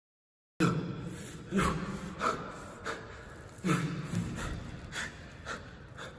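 A man gasping and breathing hard in ragged, uneven breaths, some with a low voiced moan, starting suddenly just after half a second in. These are the laboured breaths of a wounded, hooded captive losing blood.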